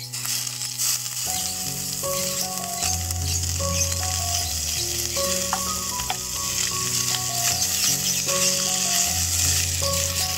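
Shredded pindang fish frying in a metal pan, sizzling steadily as a wooden spatula stirs and turns it, with basil leaves stirred in partway through. Soft background music of held notes runs underneath.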